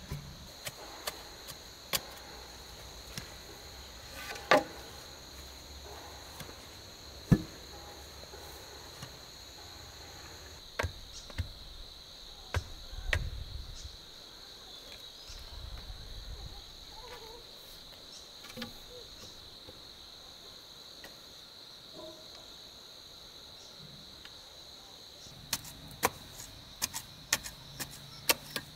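Steady high-pitched drone of insects, cricket-like, with scattered sharp knocks and clicks, the loudest about four and seven seconds in and a quick run of clicks near the end.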